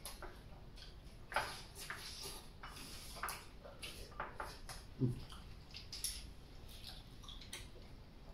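People eating at a table: chopsticks clicking and scraping against porcelain bowls, with mouth sounds of chewing, as scattered small clicks. Several sharper clicks stand out, the loudest about five seconds in.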